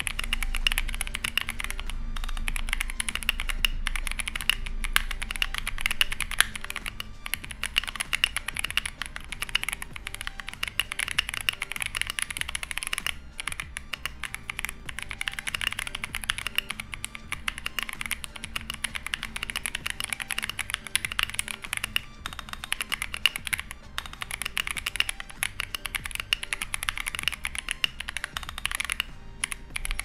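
Fast continuous typing on an Akko ACR Pro 68 mechanical keyboard with Akko Creamy Purple Pro tactile switches and PBT keycaps: a dense run of keystrokes, a muted clack, with a few brief pauses.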